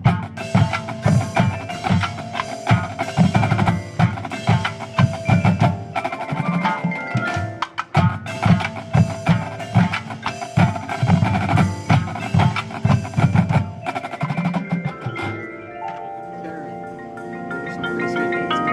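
Drum corps percussion section playing: fast, rhythmic drum strokes mixed with mallet keyboards such as marimba, glockenspiel and chimes. About three-quarters of the way through the drums drop away and sustained keyboard chords ring on.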